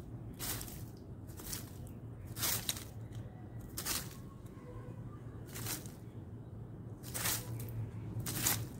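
Dry leaf litter rustling in short, irregular bursts, about seven in all, as a male common blackbird forages, tossing leaves aside with its bill. A faint low hum runs underneath.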